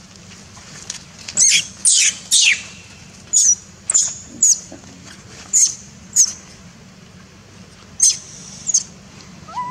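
A young macaque giving about ten short, shrill, high-pitched squeals, each falling in pitch, several of them in quick pairs.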